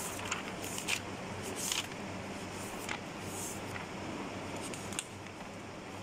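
Pages of a paper notebook being flipped by hand: a series of short papery swishes over a steady low hum.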